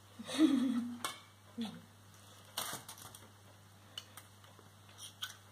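Metal spoons scraping and clinking against a stainless-steel pot as a thick chocolate mass is scooped out, with a louder scrape near the start and several sharp clicks.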